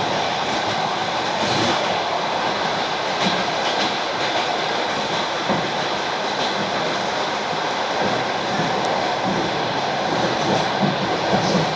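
ED4M electric commuter train running along the track: a steady rolling and running noise with a light wheel clatter.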